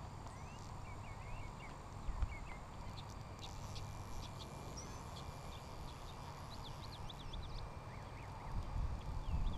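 Small birds chirping and calling in many short notes over a low wind rumble on the microphone, with a single thump about two seconds in.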